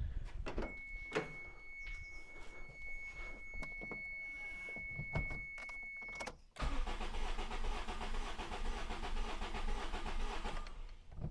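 Starter motor cranking a 1997 Toyota Tercel engine for about four seconds, starting suddenly about six and a half seconds in, with coil packs unplugged so it turns over without firing, during a compression test of cylinder 1 that reads no compression. Before it, a few clicks and a steady high tone.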